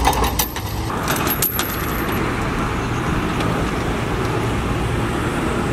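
Heavy diesel engines of a wheel loader and a dump truck running steadily. In the first second and a half, a few sharp metallic clinks from the steel tow chain rattling on its hook.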